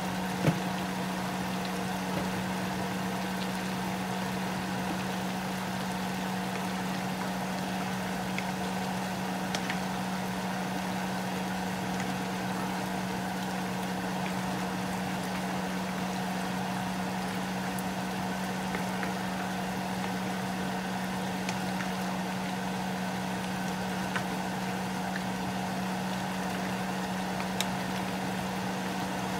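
A pan of chicken pieces simmering in sauce under a steady low hum, with a few light knocks of a wooden spatula against the pan, the sharpest about half a second in.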